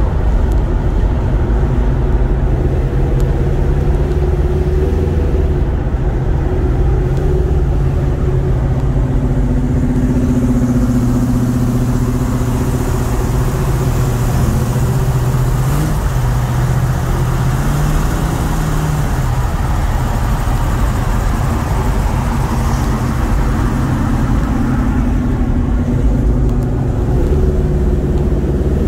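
Classic muscle car engines running at cruising speed on the road, a steady low engine drone under road and wind noise. The engine note rises a little past halfway, then settles.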